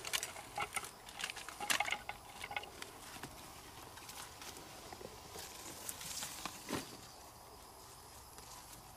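Fishing tackle being handled: a quick run of light clicks and knocks over the first two seconds or so, then only faint outdoor background with a few scattered clicks later on.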